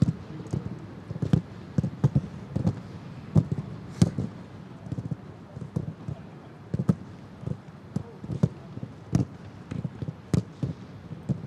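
Footballs being kicked and struck during a training session: irregular, unevenly spaced thuds, about one or two a second, over a steady background hiss.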